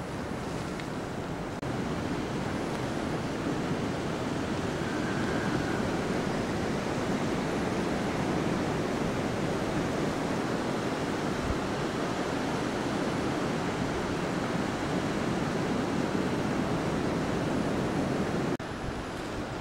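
Strong wind buffeting the microphone: a steady rush of wind noise that gets louder about two seconds in and drops back just before the end.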